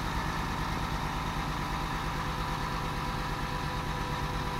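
A 2002 Oldsmobile Bravada's 4.2-litre Vortec inline-six idles steadily while the built-in load-leveling air compressor runs, pumping up the rear air shocks so that the back end rises.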